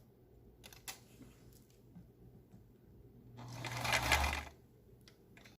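Electric sewing machine running in one short burst of stitching about three and a half seconds in, for about a second. A few light clicks come before it.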